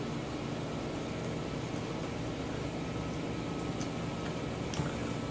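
Steady background hum and hiss, with a few faint clicks of wooden chopsticks against a ceramic bowl.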